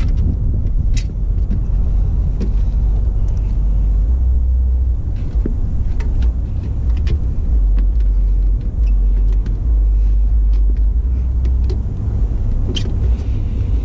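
A strong, uneven low rumble, with scattered light clicks and taps as LED tail lights and their wires are worked into rubber grommets on a chrome mudflap bracket.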